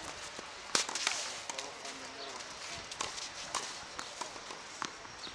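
Tennis ball being hit back and forth in a rally on a clay court: a string of sharp pops from racket strikes and ball bounces, spaced about a second apart, the loudest one a little under a second in.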